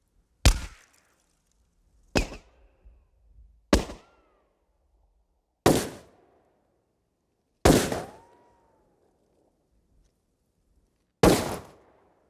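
Bullet ricochet sound effects: six sharp cracks, one to four seconds apart, several trailing off in a short whine that bends in pitch.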